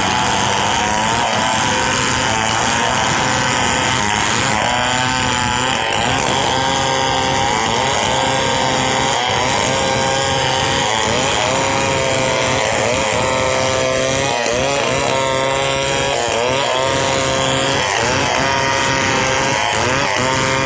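Stihl 070 two-stroke chainsaw running under load, ripping lengthwise through a log to cut planks. Its engine note runs without a break, the pitch wavering up and down as the chain bites.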